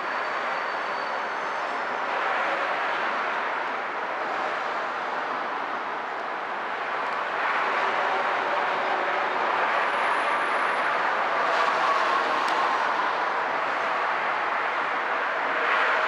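Freight cars rolling slowly along the rails during yard switching by a CSX locomotive: a steady rolling noise with a few short clicks about three-quarters of the way through.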